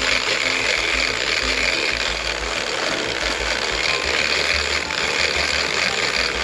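Large shark-fishing reel buzzing steadily under load while a hooked shark is fought from the beach, a mechanical whir that starts abruptly and keeps going.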